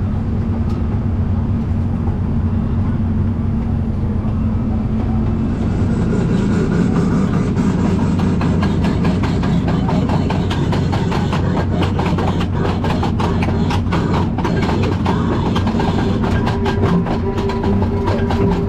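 Casey Jr. Circus Train cars rolling along the track with a steady low rumble, heard from aboard. From about six seconds in come quick rattling clicks of wheels and couplings that grow denser toward the end.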